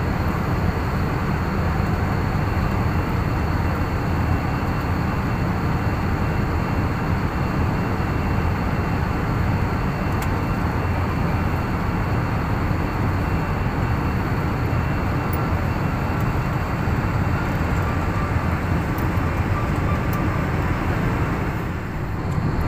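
Airbus A320neo cabin noise in flight: a steady low rumble of the engines and rushing air, heard inside the cabin at a window seat over the wing, with faint steady high tones above it. The level dips briefly near the end.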